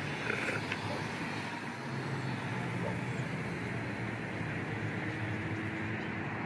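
Steady traffic noise from a nearby road, with faint, indistinct voices underneath and a brief noise just after the start.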